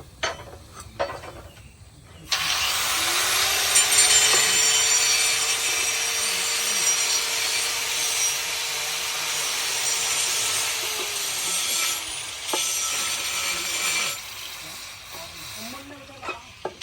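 Electric grinder spinning up about two seconds in, grinding steel with a loud steady hiss for about ten seconds, then spinning down; a few light knocks before and after.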